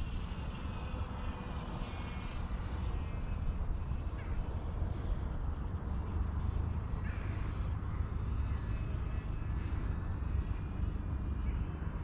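Faint high whine of a mini RC airplane's 1306 brushless motor and 4045 propeller in flight, shifting in pitch as the plane moves across the sky, under steady low wind rumble on the microphone.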